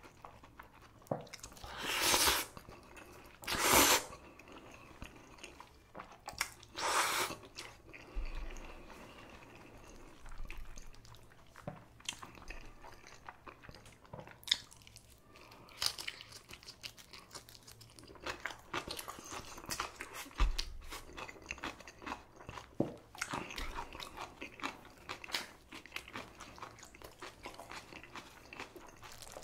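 A person eating spicy cold buckwheat noodles and napa cabbage kimchi close to the microphone: three loud noodle slurps in the first seven seconds, then steady wet, crunchy chewing.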